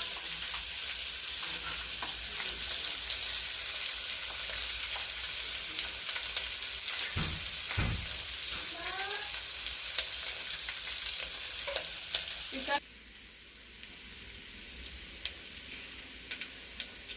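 Onions sizzling in hot oil with curry leaves and mint just tossed in, a steady frying hiss. About thirteen seconds in the sizzle drops suddenly to a much quieter hiss with a few small clicks.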